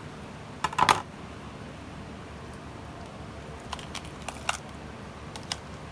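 Knife cutting through a raw chicken joint on a cutting board, with sharp knocks and cracks as the joint breaks. The loudest is a quick cluster of knocks just under a second in, followed by a few lighter clicks later on.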